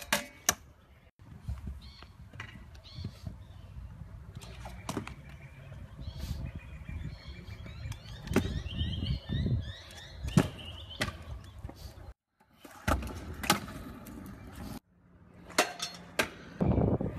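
Stunt scooter wheels rolling on concrete with a low rumble, broken by sharp knocks of the deck and wheels hitting the ground as tricks land, about seven in all. Some faint high chirps sound in the middle.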